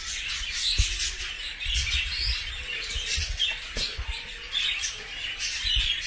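Small birds chirping and chattering steadily in the background, with a few soft low knocks about a second in and again near four seconds.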